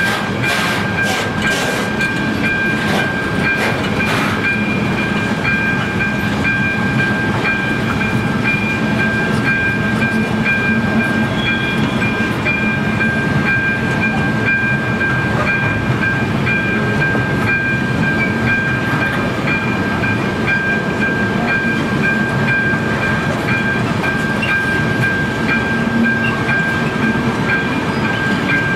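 Container freight wagons rumbling slowly over a level crossing, with wheel clacks most distinct in the first few seconds. Over it, the crossing's AŽD ZV-02 electronic bell rings continuously with a repeating high tone.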